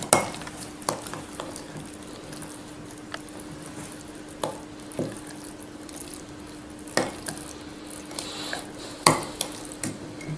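Metal spoon stirring oats and yogurt in a glass jar, knocking against the glass in irregular clinks between quieter stirring.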